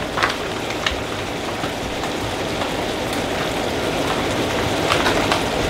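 Mushrooms sizzling in a cast-iron pan, a steady hiss with a few sharp pops near the start and again about five seconds in, as the moisture cooks out of them.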